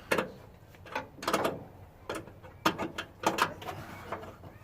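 Hand tools clicking and knocking against the starter solenoid's terminals and mounting bolts, in irregular sharp clicks, one or two a second, some in quick pairs.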